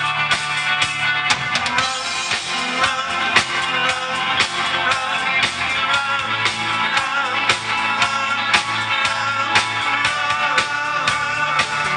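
Live rock band playing an instrumental passage: a drum kit keeps a steady beat of about two hits a second under bass and guitar, with a lead line bending in pitch.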